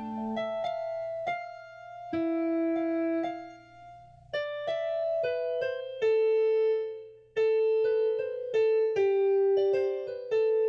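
Music: a slow melody on an electric piano-style keyboard, played mostly one note at a time, each note struck and left to ring.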